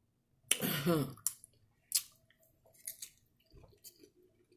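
A person chewing a mouthful of nachos, with a few sharp crunches of tortilla chip. There is a short voiced hum about half a second in.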